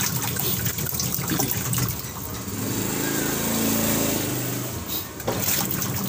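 Twin-tub washing machine's wash motor driving the pulsator through its newly replaced gearbox, with water running into the tub. It runs evenly with a steady hum, with none of the gear-grinding of the failed gearbox, and the motor sound drops out briefly near the end.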